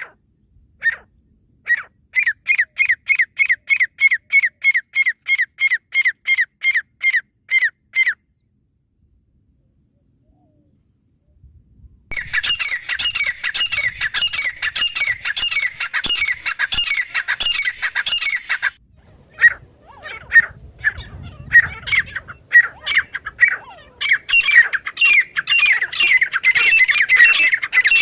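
Grey francolin calling: a fast run of sharp, evenly repeated notes, about three a second, that stops after about eight seconds. After a few seconds of silence a denser run of calls starts up and goes on, with a thin steady high tone joining in about halfway through.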